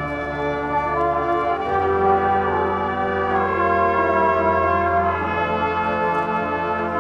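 Marching band's brass and woodwinds playing held chords that change every second or two, trumpets and trombones leading, with a low bass note coming in about two seconds in.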